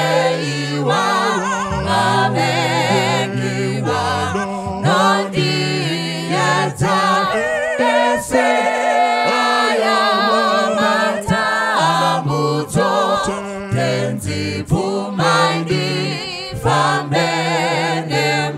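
Choir singing a hymn unaccompanied, in several parts, with low voices carrying a bass line under the higher parts.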